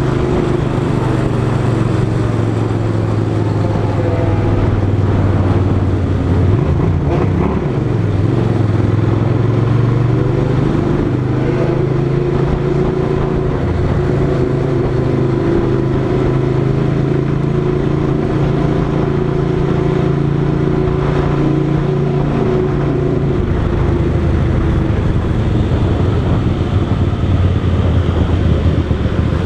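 Motorcycle engine running under way at a steady speed, holding one note for most of the time, then dropping lower about 23 seconds in as it eases off.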